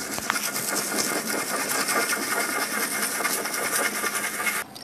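Outro logo sound effect: a steady, rapid scratchy rattle that stops just before the end.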